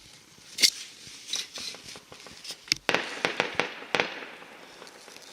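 Fireworks going off: sharp bangs with crackling, the loudest a single bang about half a second in, then a quick run of several bangs around three to four seconds in.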